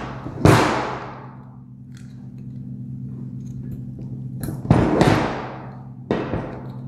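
Heavy metal knocks and clanks from the housing of an explosion-proof light fitting being handled on a table, each ringing out for a moment. There is one knock about half a second in, two close together around five seconds, and one more near the end, over a steady low hum.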